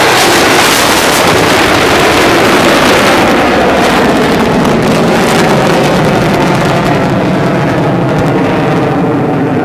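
F-22 Raptor's twin turbofan jet engines, loud and crackling as the jet passes overhead. The sound dulls and eases in the second half as the jet climbs away.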